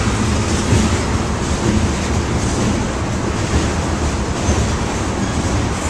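Freight train cars, a covered hopper and tank cars, rolling past: a loud, steady rumble of steel wheels on the rails.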